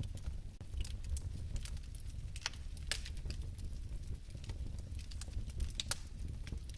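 Fireplace fire burning: a steady low rumble of flame with irregular sharp crackles and pops scattered throughout.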